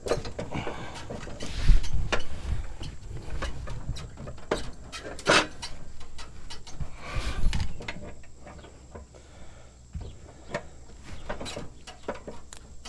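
Irregular metallic knocks, clanks and scrapes of a socket wrench being fitted onto a riding mower's blade nut under the steel deck and strained against it to break the nut loose. The loudest clanks come about 2, 5 and 7 seconds in.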